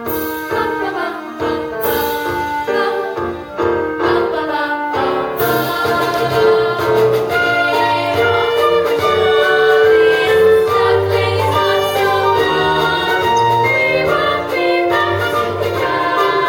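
A stage musical number: a chorus of voices singing over instrumental accompaniment. A few crisp accented hits mark the first five seconds, then the music fills out into fuller sustained chords.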